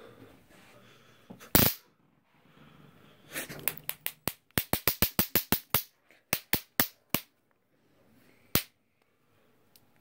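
Handheld stun gun firing short zaps, heard as sharp electric cracks: one loud crack, then a quick run of about a dozen cracks, a few more, and a last single crack.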